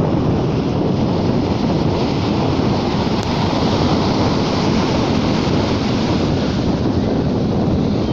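Sea waves washing on the shore in a continuous surf, swelling a little in the middle, with wind buffeting the microphone.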